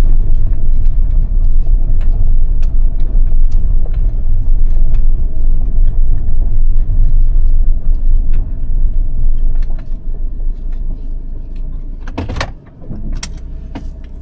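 Car running with a steady low rumble, which grows quieter over the last few seconds, followed by a few sharp clicks near the end.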